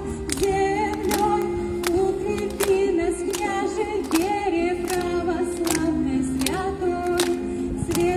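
A female solo voice sings a slow Russian devotional song to Saint Vladimir through a microphone and loudspeaker. It moves in long held notes with vibrato.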